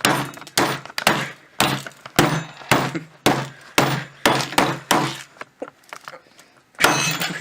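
A hammer striking computer hardware about a dozen times, roughly two blows a second, then one louder, longer crash near the end.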